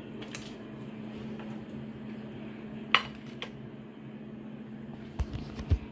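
Crab legs being lowered into a large pot of seafood boil. A sharp metallic clink against the pot rings about three seconds in, and two dull knocks come near the end, all over a steady low hum.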